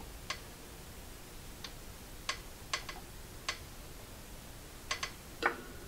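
Faint, irregular small clicks, about nine over several seconds, from soldering a wire onto an LED strip's solder pad with a soldering iron.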